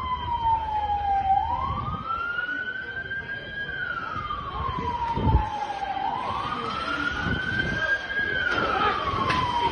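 Emergency vehicle siren in wail mode, its pitch sweeping slowly up and down about every four and a half seconds, with a low thump about halfway through.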